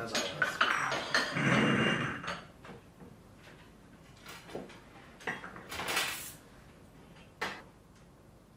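Glass tea cups and china saucers and plates clinking and clattering on a table as tea is served, busiest in the first two seconds, then a few separate clinks and a short scrape.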